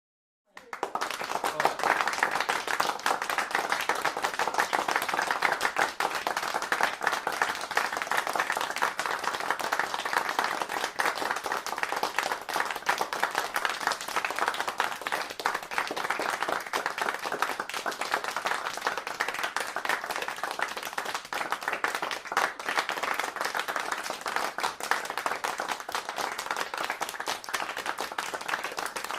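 Applause: many people clapping in a dense, steady stream. It starts after a brief silence, rising in about half a second in.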